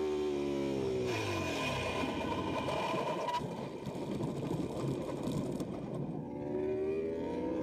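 Honda RC213V MotoGP bike's V4 engine at high revs drops away sharply about a second in as the bike goes down in a crash, followed by several seconds of rough scraping noise as it slides along the ground. Near the end the engine note rises again as it is revved back up.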